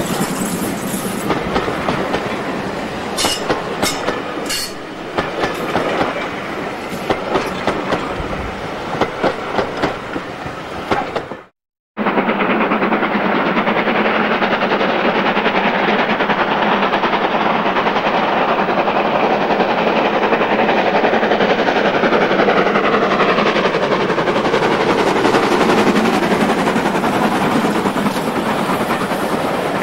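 Coaches behind steam locomotive 5224 rolling past close by, their wheels clicking in a regular beat over the rail joints. About twelve seconds in the sound drops out briefly, and a second steam-hauled train then runs past with a steady rumble and clatter of wheels.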